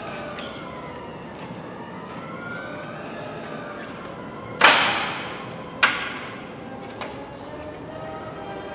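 Plastic trim clips on a 2016 Toyota Avensis door sill snapping loose as the trim is pried off the body: two sharp cracks about a second apart, the first the loudest, then a fainter knock.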